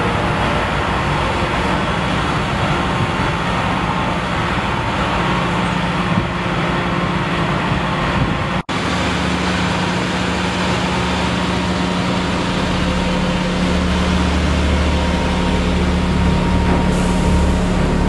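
XCMG XF100 truck-mounted road surfacing machine running steadily as it works, a continuous engine and machinery noise with a steady low hum. The sound drops out for an instant about halfway through and carries straight on.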